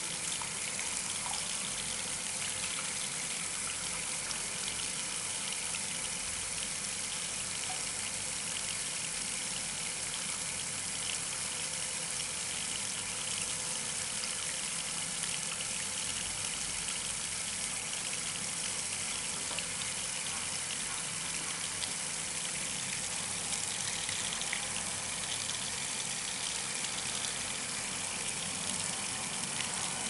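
A steady stream of water pouring onto mated industrial connectors and the wet panel around them, with a continuous, even splashing noise: a water-spray test of the connectors' waterproof sealing.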